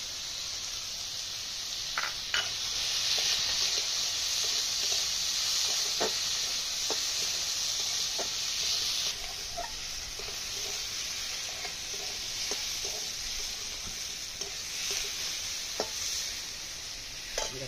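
Chopped potatoes and carrots sizzling in oil in a metal karai, with a metal spatula scraping and clinking against the pan now and then as they are stirred.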